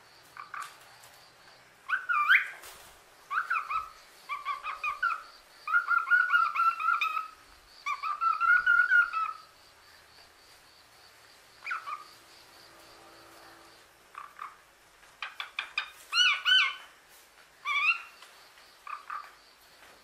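Common hill myna calling loudly in quick bursts of clear, pitched calls that slide up and down, with a lull of a few seconds midway before another burst.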